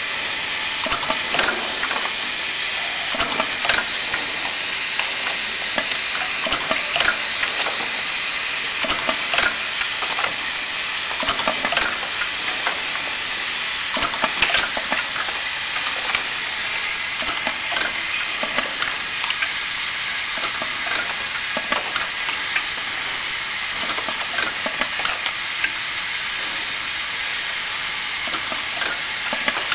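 Steady hiss with a scatter of small clicks, taps and crackles as a manual labeling machine is worked by hand and plastic film is handled.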